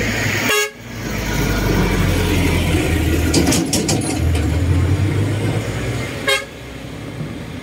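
A low-pitched horn held steadily for about five and a half seconds, starting and cutting off sharply.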